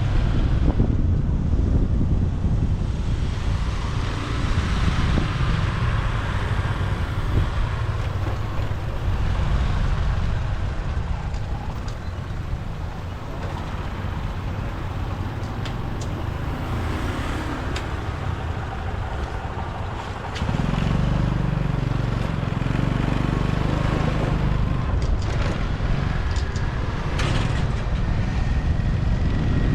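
Motorbike riding through city traffic: a steady low engine and road rumble with wind noise and passing vehicles. The low rumble gets suddenly louder about twenty seconds in.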